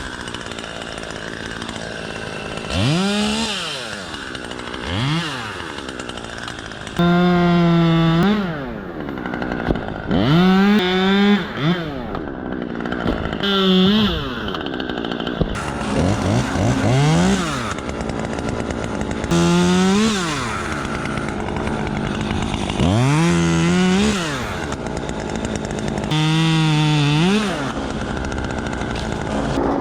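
Chainsaw revved up about nine times, each rev climbing to full speed, holding for up to a second or so, then falling back to a lower idle between.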